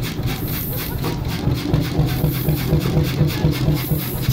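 Målilla 35 hp hot-bulb crude oil engine, a single-cylinder two-stroke, running with a steady, regular knocking beat.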